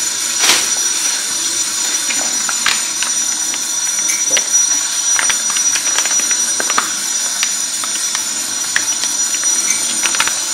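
Steady kitchen hiss with scattered light clicks and taps of utensils and dishes as food is prepared on a tray.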